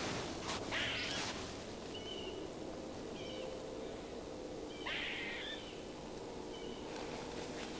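A squirrel barking and whining: a few short, scattered calls, the loudest about a second in and another about five seconds in.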